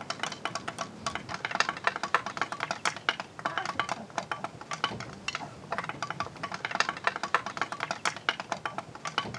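Improvised percussion music: a rapid, irregular run of sharp clicks and taps, several a second, some with a short pitched ring.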